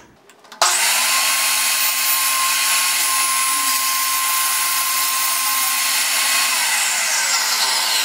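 Old benchtop table saw switched on with a sudden start about half a second in, its motor and blade running at a steady high whine while a thin wooden panel is pushed through. Near the end it is switched off and the whine falls as it winds down.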